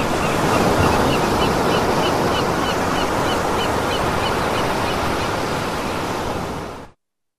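Ecotones Sound+Sleep machine playing its ocean sound story: a steady wash of surf and waves, with a quick run of short, high chirping calls over the first few seconds. The sound cuts off abruptly near the end.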